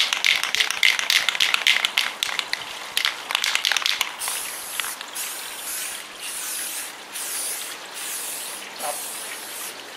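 Aerosol spray paint can being shaken, its mixing ball rattling fast, then about four seconds in a run of short hissing sprays, roughly one a second, with brief pauses between them.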